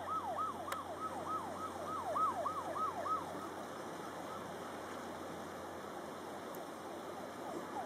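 A distant siren-like wail sweeping down and back up about three times a second, fading out about three seconds in and returning faintly near the end, over a steady hiss of outdoor background noise.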